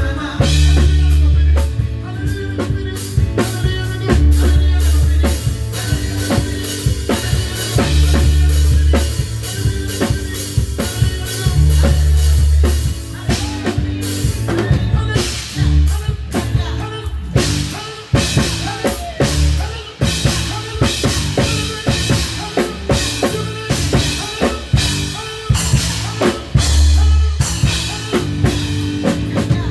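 Live band playing a song: a drum kit with kick, snare and cymbal hits played densely and steadily, over held bass notes that change every couple of seconds.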